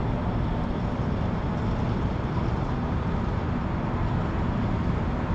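Steady low rumbling outdoor background noise with no clear pitch and no separate events.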